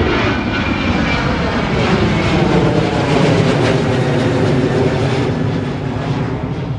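Jet airliner taking off at full power: loud, rushing engine noise with a sweeping quality as it passes, easing off near the end.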